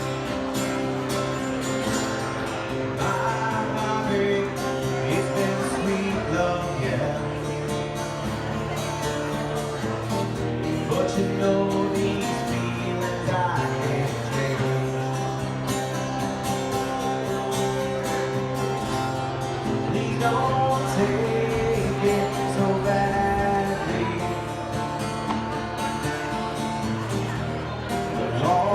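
Background music: a song with acoustic guitar and singing.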